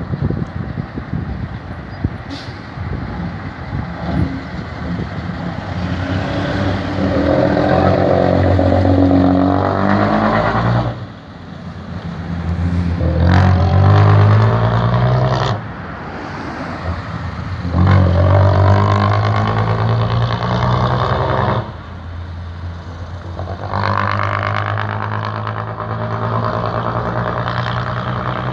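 FNM truck's diesel engine accelerating hard as the truck passes and pulls away, its note climbing in each gear and cutting off briefly at three gear changes, about eleven, fifteen and twenty-one seconds in.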